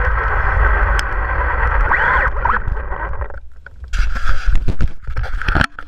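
Small RC buggy's motor and drivetrain whining steadily while it drives on asphalt, with tyre and wind rumble on the onboard camera. The car then slows, and loud irregular knocks and rubbing follow right at the camera as the car is handled by hand.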